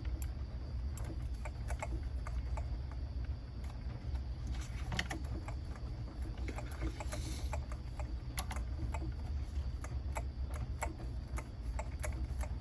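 Irregular light clicks and taps of small metal parts and a hand tool being handled while a drive shaft screw pin is fitted on an RC truck's front hub, over a steady low hum.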